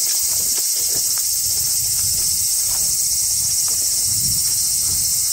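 Loud, steady high-pitched chorus of summer insects, cicadas or crickets droning together without a break. Underneath it, faint low thumps and rustles of someone walking.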